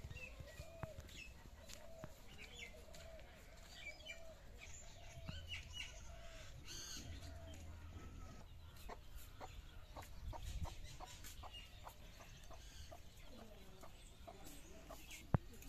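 Domestic hens clucking in repeated wavering calls, most through the first half, with small birds chirping higher above them.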